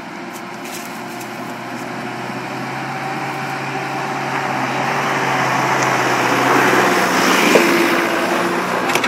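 Mitsubishi Canter fire truck's engine running as the truck drives slowly toward the listener and passes close by. The engine steadily grows louder and is loudest about seven to eight seconds in.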